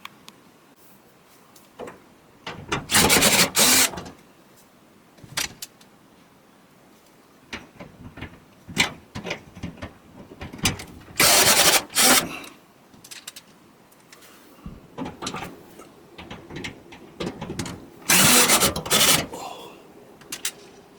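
Power screwdriver backing out Phillips screws from a dryer's metal panel, in three bursts of a second or so each, with clicks and knocks of handling between them.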